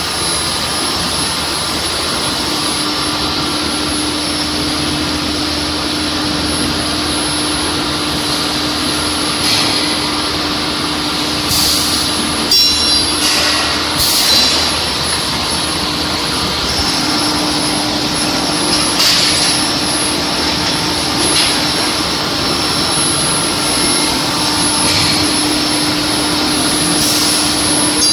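An induction quenching and tempering line for threaded rebar running: a steady rushing noise with a steady hum and a thin high whine, and a few short louder bursts of noise in the middle.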